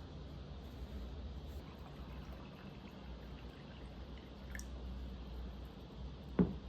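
Quiet room tone with a low steady hum and a few faint small clicks, then one sharp knock near the end.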